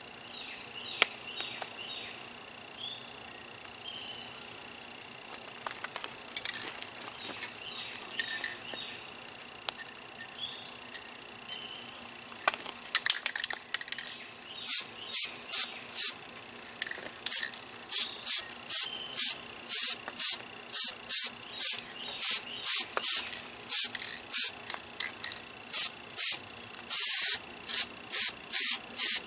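Aerosol can of Rust-Oleum paint spraying in rapid short hissing bursts, about two a second, with one longer burst near the end. Before the spraying, about halfway in, there are a few short clicks and rattles, and faint bird chirps in the first half.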